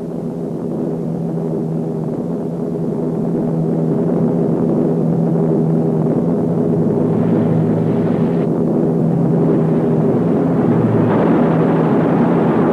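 Steady drone of WWII piston-engine fighter aircraft flying in formation, slowly growing louder, with a swelling rush near the end as the noise builds.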